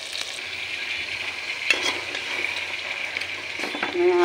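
Spice paste sizzling steadily in hot oil in a metal cooking pot, with a single sharp click about one and a half seconds in.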